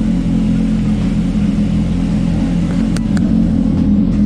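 Steady low engine rumble on a ferry's vehicle deck, with two short clicks about three seconds in.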